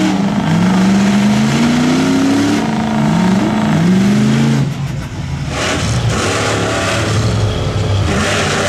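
Lifted Ford Super Duty mega truck's engine revving hard several times in a row, each rev climbing in pitch, with dark smoke from the exhaust stack. About halfway through it gives way to a mega truck on paddle tyres running through mud, a lower engine note under the hiss of flung mud.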